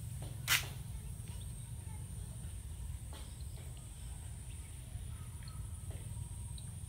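Rural outdoor ambience: a steady low rumble, a steady high-pitched insect drone, and one short sharp noise about half a second in.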